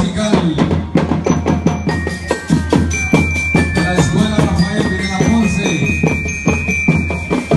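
Marching band of snare drums, bass drums and bell lyres playing a fast, dense drum cadence, with struck lyre notes ringing out over the drumming from about a second in.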